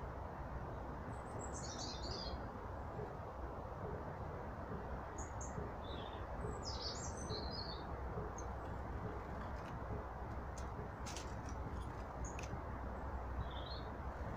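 Small birds chirping in a few short, high bursts, with a pause between each, over a steady low background rush. A couple of sharp clicks come about two-thirds of the way through.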